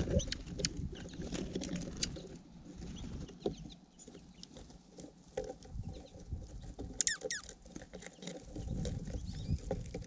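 Small finches pecking and scrabbling in seed on a feeder tray right at the microphone, a steady patter of clicks and scratches, with a short burst of high chirps about seven seconds in. A low rumble underneath fades in the middle and returns near the end.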